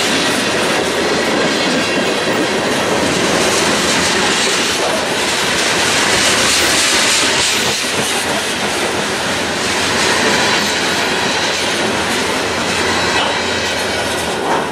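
Freight cars of a passing train rolling by close at hand, steel wheels clattering over the rail joints in a loud, steady rumble. Near the end the last car goes by and the sound starts to drop away.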